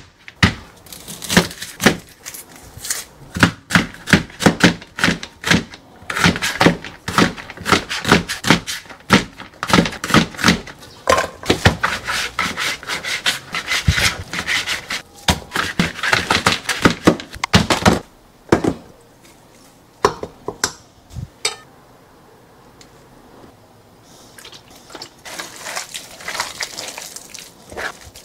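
Knife chopping sliced pork on a cutting board: a long run of sharp knocks that stops about two-thirds of the way through. Near the end, soft rubbing and squelching of gloved hands mixing the seasoned meat in a pot.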